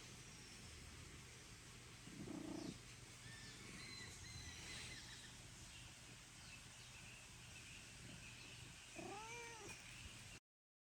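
A domestic cat meowing once near the end, one drawn-out call that rises and then falls in pitch. Faint high chirps come and go earlier over quiet outdoor background.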